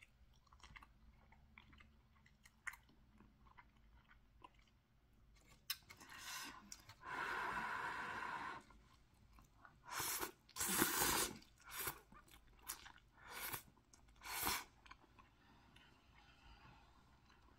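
Eating instant rice noodles: quiet chewing at first, then one long slurp of the noodles about seven seconds in, followed by a run of short, louder slurps.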